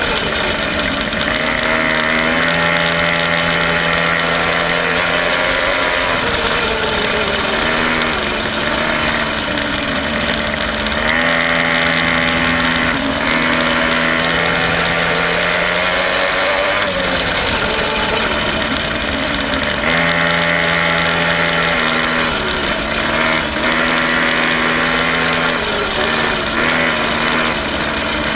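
Quad bike engine running as it is ridden, its pitch rising and falling with the throttle between stretches of steady held revs.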